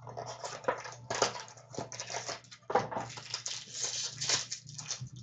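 Hockey card pack wrapper crinkling and tearing as it is opened by hand, an uneven run of crackles, over a steady low hum.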